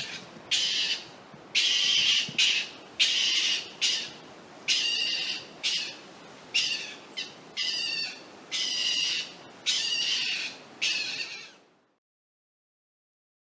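Marten calling: a series of about a dozen high, harsh calls, each under a second long, about one a second.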